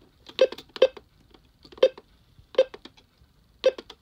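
Buttons on a Midland Alert Works EAR-10 weather radio pressed one at a time, five short sharp presses spaced irregularly, as its menu settings are stepped through.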